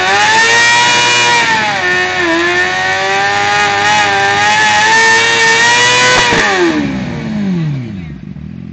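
Suzuki sportbike engine revved hard and held at high revs, dipping briefly a couple of times. About six seconds in the revs drop away, falling back to a low idle near the end.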